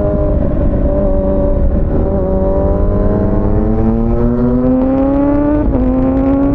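Kawasaki ZX-6R inline-four engine pulling through the gears under way. The pitch drops at a shift about two seconds in, climbs steadily for several seconds as the bike accelerates, then drops again at another shift near the end.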